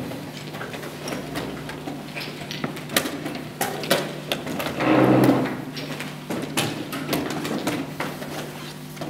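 Chess pieces being set down and moved on boards around a tournament hall: scattered light clicks and knocks, over a steady low hum. About five seconds in, a louder muffled sound rises briefly.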